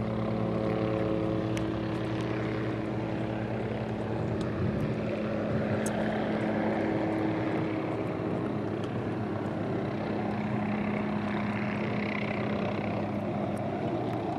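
Small light helicopter flying over, its engine and rotors giving a steady drone that holds level throughout.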